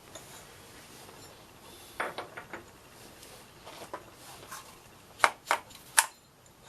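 Metal clinks as a workpiece and parallels are set into a machine vise, then three sharp strikes about five to six seconds in as the work is knocked down to seat it on the parallels.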